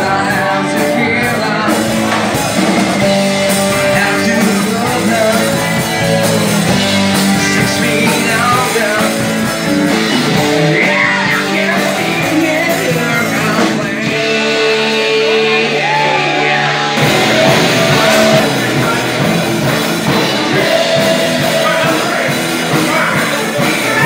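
Rock music with a singer, playing steadily and loudly.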